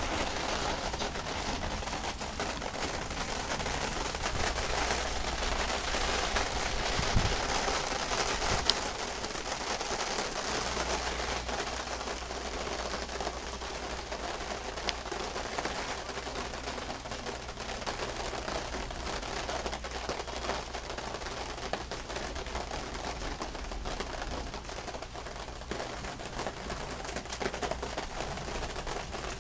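Heavy rain pouring down steadily, an even hiss of water with a few sharp drip clicks.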